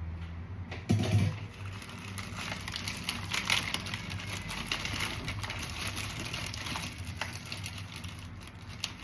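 Plastic grocery bags crinkling and rustling as groceries are packed away: an irregular crackly rustle starting with a soft thump about a second in.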